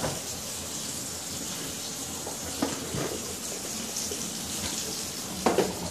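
Bathtub tap running, water pouring steadily into a jetted tub as it fills, with a few light knocks about halfway and near the end.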